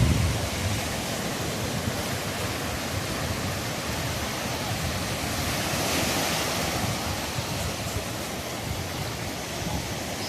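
Sea waves washing on the shore, a steady rush of surf that swells into a louder wash about six seconds in, with some wind rumbling on the microphone at the start.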